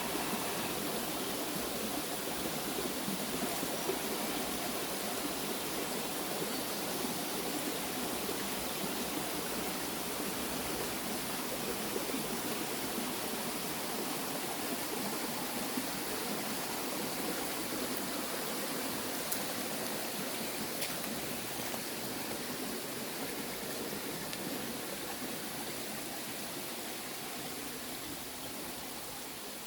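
River water flowing with a steady rush, easing slightly near the end.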